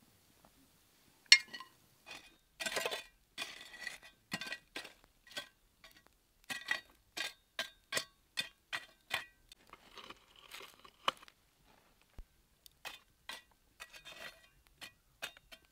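Hard objects clinking and knocking: a string of sharp, ringing strikes, the loudest about a second in. In the middle they come in a fairly regular run of about two a second.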